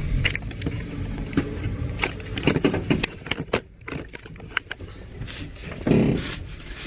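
Mitsubishi Fuso Fighter truck's diesel engine heard from inside the cab: a steady low rumble under many sharp knocks and rattles as the truck rolls over a rough dirt road, with a heavier thump about six seconds in.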